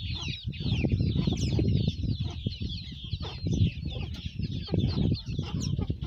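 A crowd of ducklings peeping: many high, short, falling chirps overlapping without pause, over a low rustling noise.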